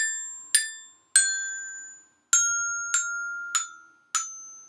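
Child's metal-bar glockenspiel struck with a mallet: seven single notes about half a second apart, with one longer pause, each a clear bell-like ring that fades, stepping downward in pitch overall.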